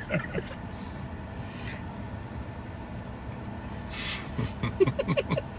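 Steady low background hum, with a quick run of short vocal sounds near the end, like a person making noises or stifling laughter.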